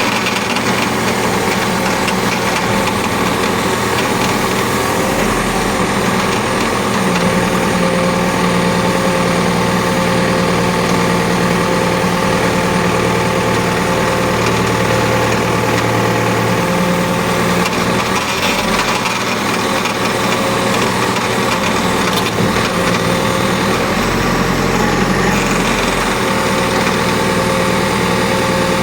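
Backhoe loader's hydraulic pump running with the engine, a steady whine over the engine sound: an abnormal pump noise.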